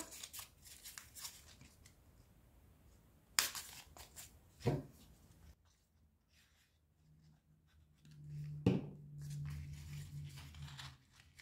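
Faint handling of small EVA foam craft pieces and glue: a few light clicks and taps with soft rustling, and a faint low hum from about seven seconds in.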